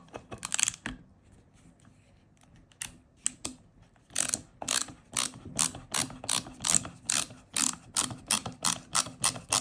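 Ratchet of a Teng Tools MDR908 ratcheting screwdriver clicking as the handle is swung back and forth while driving a screw. A few scattered clicks, then from about four seconds in a steady run of about two to three click bursts a second.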